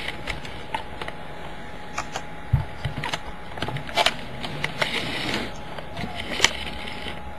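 Clicks and knocks of things being handled, with one heavier thump about two and a half seconds in and a short noisy stretch around five seconds in.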